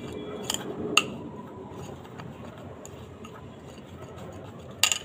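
A spoon stirring a thick paste of salt, flour and lemon juice in a small clear bowl, clinking sharply against the bowl twice in the first second and once more near the end, with quiet stirring between.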